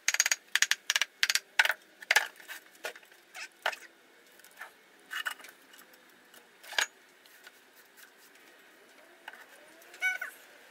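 Wooden molding flask being rapped and handled: a quick run of sharp wood-on-wood knocks over the first two seconds, then scattered knocks as the cope is lifted off the drag of the sand mold. A short pitched animal call near the end.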